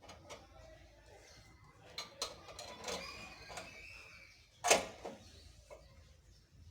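Car jack being worked by hand: scattered metallic clicks and a faint creak, with one sharp knock a little after halfway.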